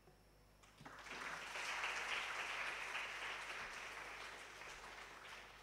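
Audience applauding, starting about a second in, swelling, and dying away near the end.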